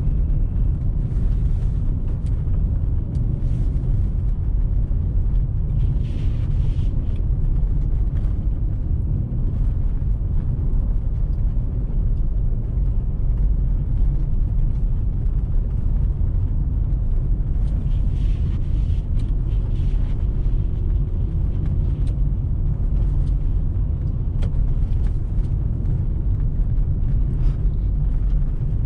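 Steady low rumble of a car driving on snowy roads, heard from inside the cabin, with faint hissing swelling briefly a few seconds in and again past the middle.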